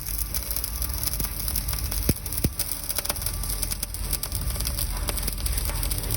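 Electric arc welding of a joint in the vertical (3G) position: a steady crackle and hiss from the arc, with a few sharper pops.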